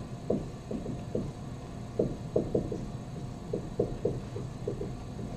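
Dry-erase marker writing on a whiteboard: short, irregular stroke sounds a few times a second, over a low room hum.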